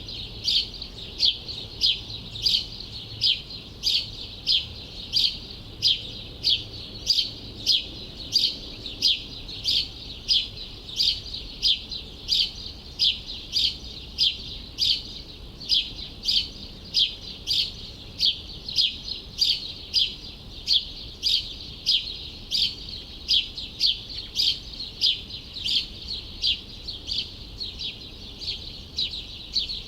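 A bird chirping over and over: short, sharp, high chirps at about two a second, keeping on without a break.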